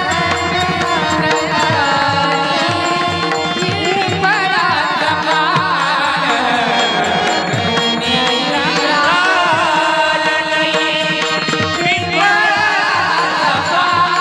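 Devotional kirtan music: a gliding melody over steady hand-drum beats.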